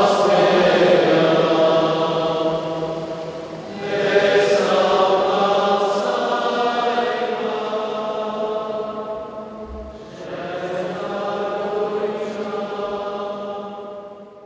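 Soundtrack music of chanted voices singing long held notes over a steady low drone, in three long phrases, fading out near the end.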